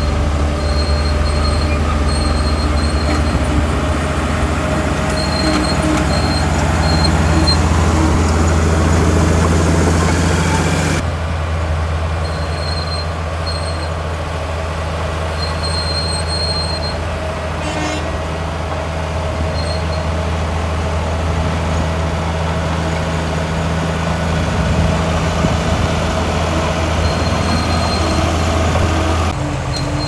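Bulldozer's heavy diesel engine working under load with a steady low drone, along with clatter and short, irregular high squeaks. The higher clatter drops away suddenly about eleven seconds in, leaving the engine's drone.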